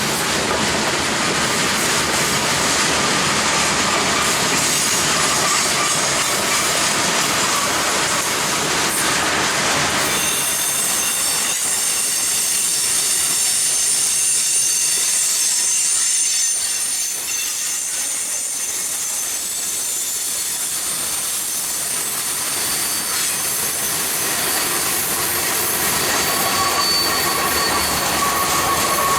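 Freight train cars rolling past on the rails with steady wheel clatter. From about ten seconds in, high steady wheel squeal rings over the rolling noise.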